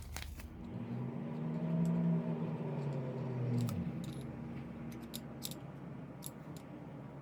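A small electric motor, most likely a hand power tool, runs with a steady low hum for about three seconds and stops, followed by scattered light clicks and taps.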